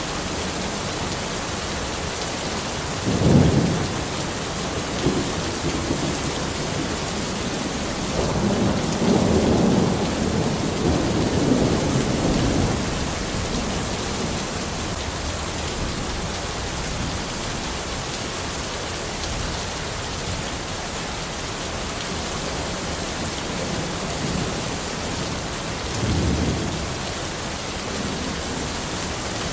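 Steady rain falling in a forest, with thunder: a short rumble about three seconds in, a longer rolling rumble about a third of the way through, and another short one near the end.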